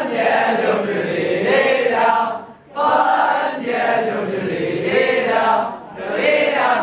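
A classroom of high-school students singing a song together in unison, many voices at once, in phrases with brief pauses for breath about two and a half seconds in and again about six seconds in.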